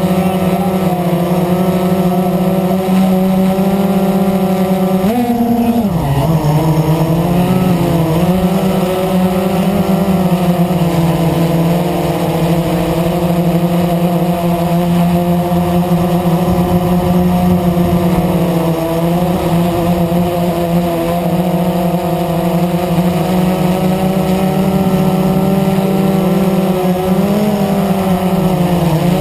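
Blade 350 QX quadcopter's four brushless motors and propellers heard from the onboard camera: a loud, steady multi-toned buzz as it hovers and flies. About five seconds in the pitch jumps up and then drops sharply as the throttle changes, then settles back, shifting slightly up and down from then on.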